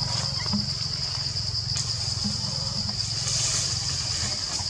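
Forest ambience: a steady, high-pitched insect drone over a constant low rumble, with a few faint clicks.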